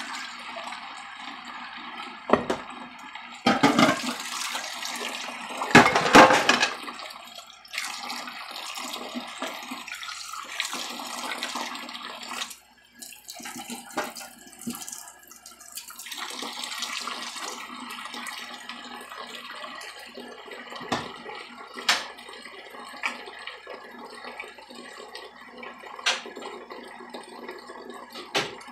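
Kitchen faucet running into a stainless steel sink while dishes are hand-washed and rinsed, with louder splashing about four and six seconds in. Sharp clinks of dishes knock now and then near the end.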